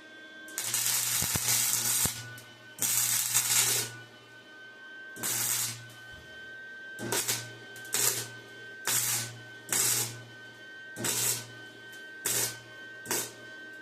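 MIG welder arc crackling in bursts with a low buzz: two welds of about a second each, then a string of short tack welds.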